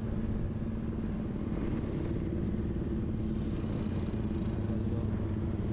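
Engine of a moving motor vehicle running at a steady, even speed, with a dense low rumble.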